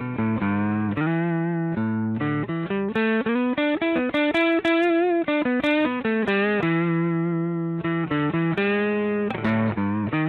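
Electric guitar played through the Egnater Tweaker 15 tube amp head with 6V6 power tubes, after its red-plating fault was fixed. It plays a run of quick single notes, with bent or vibrato notes in the middle and a held chord near the end.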